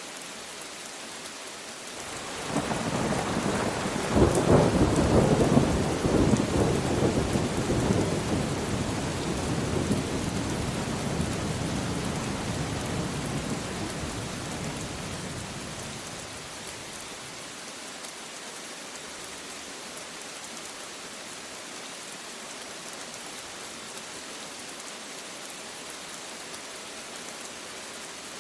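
Steady rain with a long roll of thunder: it builds about two seconds in, is loudest a few seconds later, and rumbles away over the next ten seconds, leaving the rain alone.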